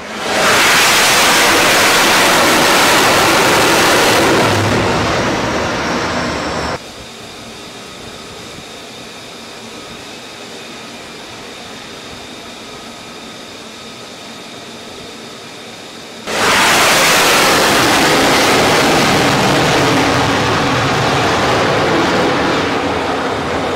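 F-35C fighter jet engine roar, a loud, full rushing noise. About seven seconds in it cuts off suddenly to a quieter steady rush with faint thin whines, and the loud jet roar returns just as suddenly about sixteen seconds in.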